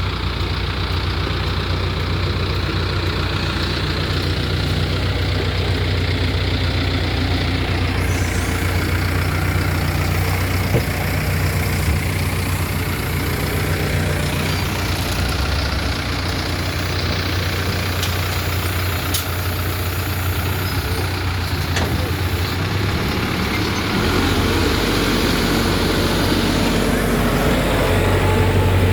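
Heavy diesel engine of road-construction machinery running steadily. Its low drone shifts in pitch a couple of times and grows louder near the end.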